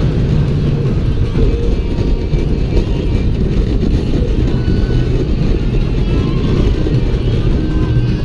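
California Screamin' steel roller coaster train running along its track at speed: a steady low rumble from the train on the rails mixed with wind buffeting the camera's microphone.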